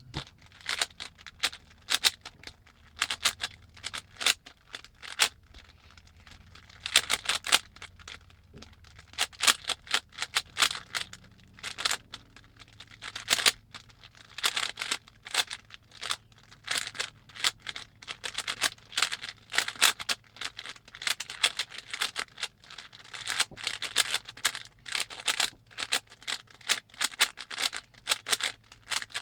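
Rubik's Cube being turned rapidly during a speedsolve: quick runs of plastic clicks and clacks as the layers turn, broken by a couple of short pauses.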